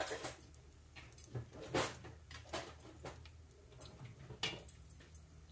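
A few short clicks and knocks of a metal slotted spatula being handled and set down on a paper-covered counter, the loudest about two seconds in and again near the end, over a faint steady low hum.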